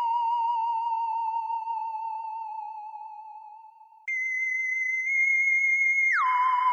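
Electronic sci-fi 'alien' sound effect: a theremin-like wavering tone that fades away over about four seconds, then jumps suddenly to a higher held tone, which slides back down near the end and starts wavering again.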